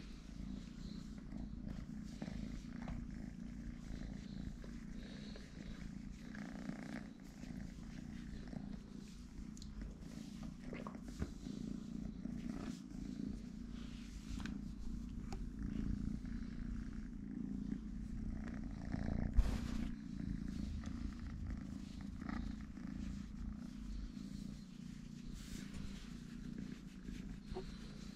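A kitten purring steadily while being scratched under the chin. A single sharp knock about two-thirds of the way through.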